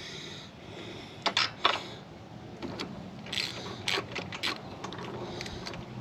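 Ratchet and spark plug socket clicking and clinking against a mower engine's spark plug as a plug is worked loose, with three sharp clicks about a second in and lighter scattered clicks after.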